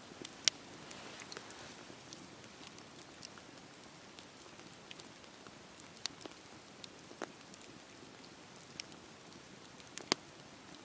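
Wood fire crackling: a soft steady hiss with scattered, irregular sharp pops, the loudest about half a second in and another near the end.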